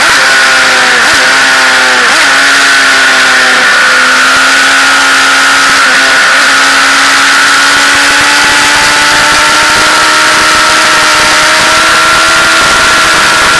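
Motorcycle engine running at speed under heavy wind rush. The engine note dips briefly three times, about one second, two seconds and six seconds in, then climbs slowly and steadily as the bike pulls through a long bend.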